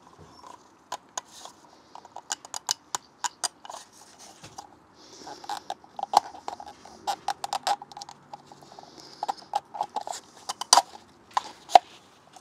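Irregular sharp clicks and taps of a plastic oil filter housing cap and a new paper oil filter element being handled and pressed together in gloved hands, with a little brief rustling.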